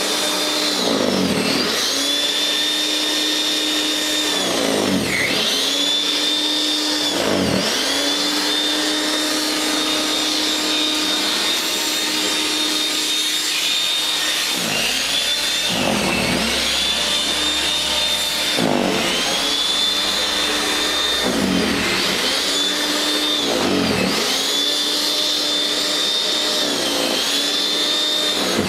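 WEN Snow Blaster 5662 13.5-amp electric snow thrower running, its electric motor and auger whining steadily. Every few seconds the pitch briefly dips and recovers as the auger bites into the snow.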